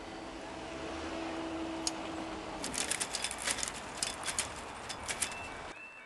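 Level crossing barrier booms rising after a train: a steady mechanical hum as the boom lifts, then a run of sharp clicks and rattles from about two and a half seconds in as it reaches the top. It cuts off abruptly near the end.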